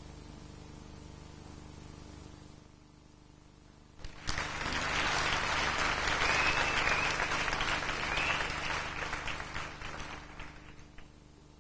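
Audience applauding a gymnast's floor routine. The clapping starts suddenly about four seconds in and dies away over about six seconds.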